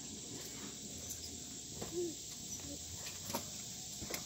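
Steady background chorus of insects, an even high hiss, with a few short sharp knocks as people move on the trampoline.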